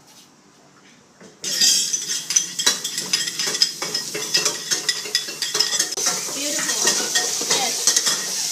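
Wide rice noodles being stir-fried in a hot pan. A loud sizzle starts suddenly about a second and a half in, with a metal spatula clinking and scraping against the pan throughout.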